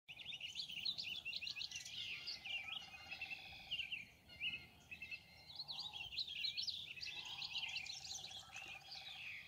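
Many songbirds chirping and singing at once, quick overlapping whistles and chirps, with a lower steady trill twice, cutting off suddenly at the end.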